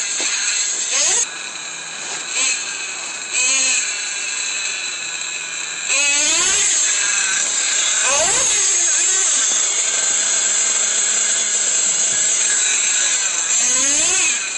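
Traxxas Revo nitro RC truck engine revving: a high-pitched whine, with short throttle blips in the first few seconds. From about six seconds in it is held at high revs, with rising and falling sweeps in pitch.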